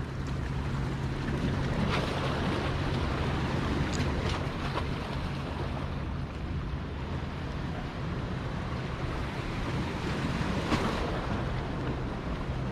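Ocean surf washing on the shore, with wind buffeting the microphone and a steady low hum underneath.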